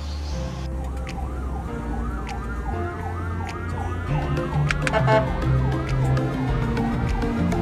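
Police motorcycle siren sounding, its pitch rising and falling quickly, about two to three sweeps a second. Background music runs underneath.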